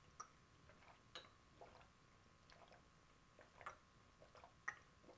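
Water being gulped from a plastic water bottle: a few faint swallows roughly a second apart, over near silence.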